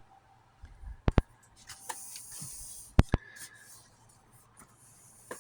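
Handling noise: a few sharp clicks and knocks, one pair about a second in and another about three seconds in, with soft rubbing between them.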